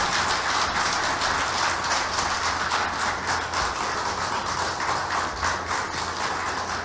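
Audience applauding, a dense patter of many hands clapping that eases off slightly toward the end.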